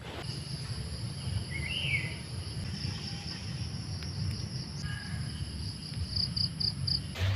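Steady high-pitched insect trill, like crickets or cicadas, with a short bird chirp about a second and a half in and a low rumble underneath. Near the end the trill breaks into four quick pulses, then cuts off.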